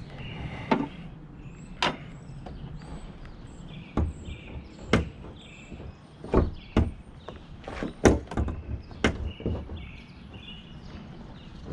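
Sharp knocks and metallic clunks of a 2015–17 Mustang's hood being lowered and handled onto a newly fitted hood pin: about a dozen separate impacts, thickest in the second half.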